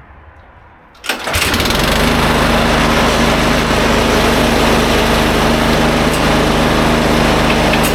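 Craftsman two-stage snowblower's four-stroke gas engine starting about a second in, catching almost at once, then running steadily.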